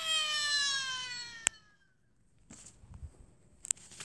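A high, drawn-out tone sliding slowly down in pitch, cut off by a sharp click about one and a half seconds in. Faint rustling and small clicks follow as paper cutouts are handled.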